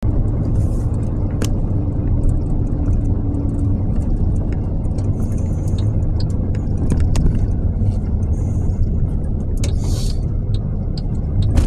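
Steady low rumble of a moving car, with faint scattered clicks and ticks over it.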